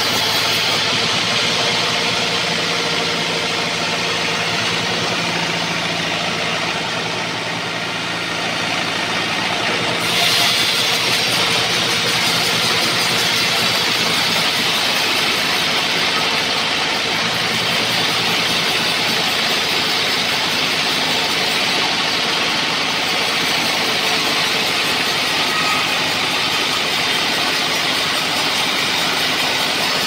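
Homemade sawmill band saw running steadily; about ten seconds in, its blade starts cutting through an old trembesi (rain tree) log, adding a steady, brighter hiss of the cut over the machine's running.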